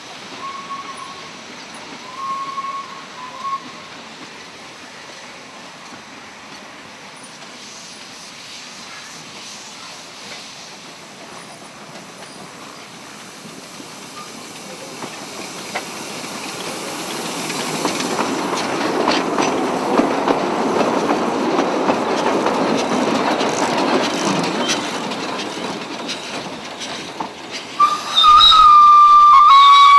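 Narrow-gauge steam locomotive approaching and passing close, its exhaust and running gear swelling to a peak mid-way and then easing off. Two faint short whistle toots come early on. Near the end the locomotive's steam whistle blows one loud, steady, single-pitched note.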